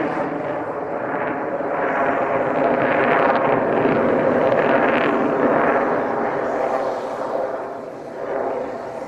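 F-22 Raptor's twin Pratt & Whitney F119 turbofan engines in flight overhead: a loud, rushing jet noise that swells and ebbs, dipping briefly near the end.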